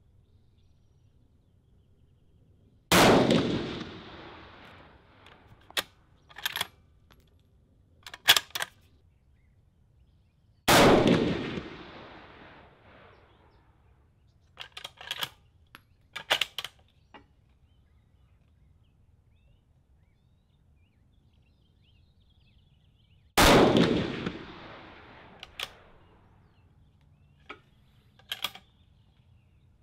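Three single rifle shots from a lightweight bolt-action precision rifle (Defiance anTI action, Proof Research carbon-fibre barrel), several seconds apart, each ringing out and fading over a second or two. Between the shots come short metallic clicks and clinks of the bolt being worked to cycle the next round.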